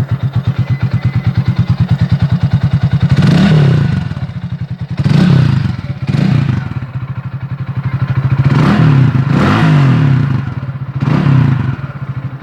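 Italika 250Z motorcycle engine idling with a steady pulsing beat, then revved in a series of short throttle blips, the pitch rising and falling back each time.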